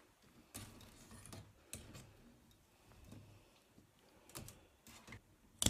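Scattered soft clicks and rustling as the fabric holding an upholstery button is pulled away from the chair's coil springs and snipped with scissors; the sharpest click comes near the end.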